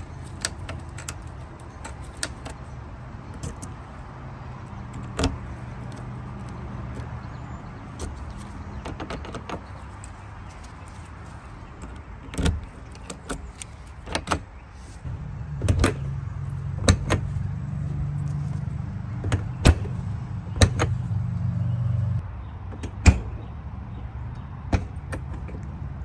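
Repeated sharp clicks and clacks of an RV entry door's deadbolt and paddle latch being worked, the lock cylinders freshly sprayed with CRC Power Lube. A low steady rumble runs underneath and grows louder for several seconds past the middle.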